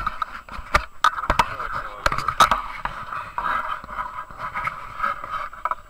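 Irregular knocks, scrapes and rubbing from handling a landing net and the camera on a boat, over a steady whirring.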